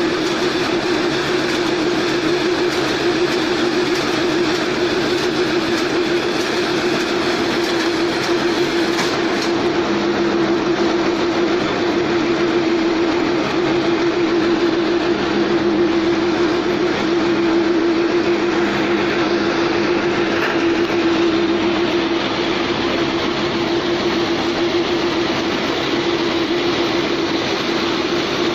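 Automatic silage baler machine running, a loud steady machine drone over a constant wash of mechanical noise.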